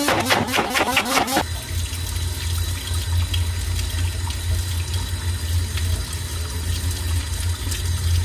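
Immersion blender running in a bowl of curd batter, its pitch wavering, until it stops about a second and a half in. After it, a steady low hum with a faint hiss.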